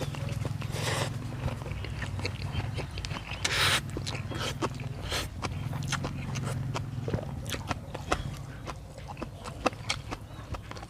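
Close-up eating of beef noodle soup: two slurps of noodles, one about a second in and one about three and a half seconds in, then wet chewing and lip smacking with many small clicks.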